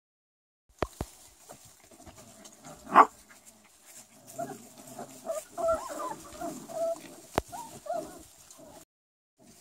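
Four-week-old Rottweiler puppies whimpering and yipping in short, pitched cries as they play-fight, with one louder cry about three seconds in. The sound starts a little under a second in, after silence.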